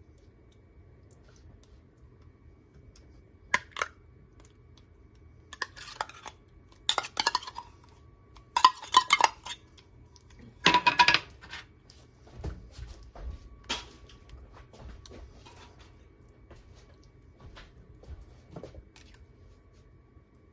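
Kitchen utensils and dishes clinking and clattering in a run of short bursts, loudest around the middle, as ingredients are spooned out and drained.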